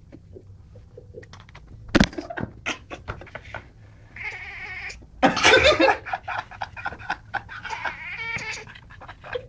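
A Burmese cat making strange, drawn-out vocal noises: several wavering pitched calls, a loud harsher burst midway, and short clicking sounds in between.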